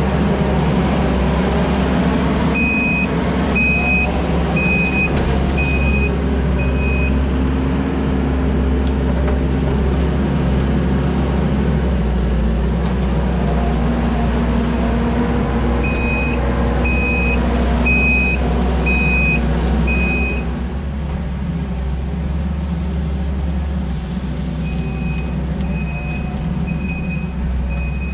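Diesel heavy equipment running hard while its reversing alarm beeps about once a second in runs of five, as the machine backs up. The engine eases off about two-thirds of the way through, and the beeping comes back more faintly near the end.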